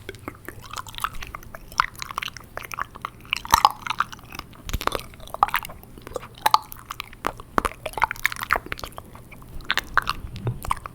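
Close-miked ASMR wet mouth sounds made with water in the mouth: a fast, irregular run of wet clicks, lip smacks and tongue pops.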